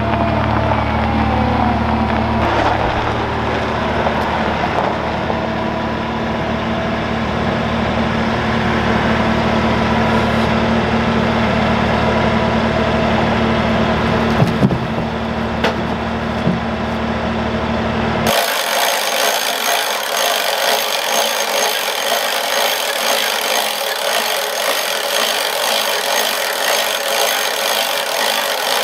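Skid steer loader's engine running steadily as it carries a log. About two-thirds of the way in the sound changes abruptly to the portable band sawmill running, a higher, brighter steady machine noise without the low engine rumble.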